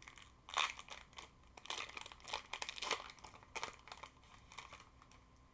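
Foil wrapper of a Pokémon trading card booster pack being torn open and crinkled by hand: an irregular string of faint crackles and rustles.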